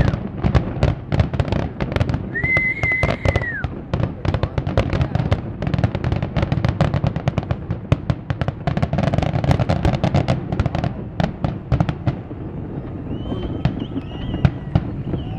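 Aerial fireworks going off in a rapid series of bangs and crackles. A high steady whistle sounds for about a second, two to three seconds in.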